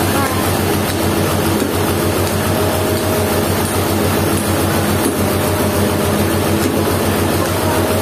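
A heavy engine idling steadily, with an even, rapid low chugging pulse.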